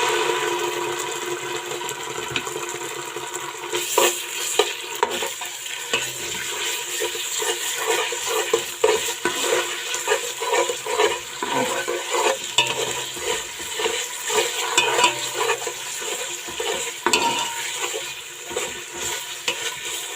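Tomato paste frying in hot vegetable oil with onions in a pot, a steady sizzle that jumps up suddenly at the outset, with a spoon stirring and repeatedly clicking and scraping against the pot.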